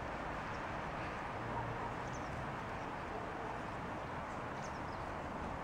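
Steady outdoor background noise, with a few faint, short high chirps scattered through.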